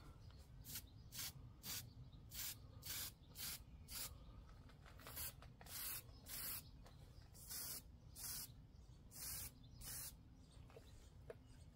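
Aerosol spray can of weld-through primer being sprayed in a series of short hissing bursts, mostly about half a second apart, with a couple of longer bursts around the middle.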